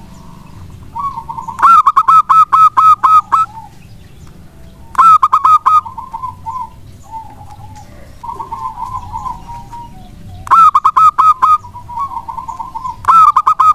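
Zebra dove (perkutut) singing: four loud phrases of quick, clipped cooing notes, with softer rolling cooing notes between them.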